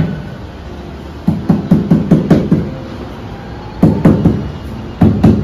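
Dull knocks in quick runs of about four a second, with a few single knocks: floor tiles being tapped down into their mortar bed during tiling.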